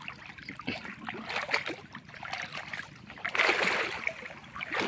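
Water sloshing and splashing as people wade waist-deep through a flooded stream, with small scattered splashes and a louder rush of swishing water from about three seconds in.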